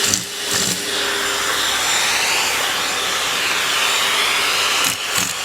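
Vacuum cleaner running steadily, its rushing air shifting slightly in pitch midway. A few dull knocks near the end.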